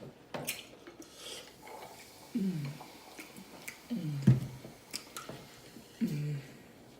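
Close-up mouth sounds of eating seafood: chewing and lip-smacking clicks, with three short hums of enjoyment that fall in pitch, about two and a half, four and six seconds in.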